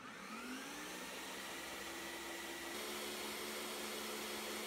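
Ninja countertop blender's motor spinning up and then running steadily as it purées a thick mix of vegetables and bread, with a slight change in its tone about three seconds in.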